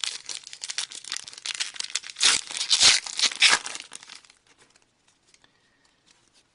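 A hockey trading-card pack's wrapper being torn open and crinkled by hand: dense crackling that is loudest around the middle and dies away about four seconds in.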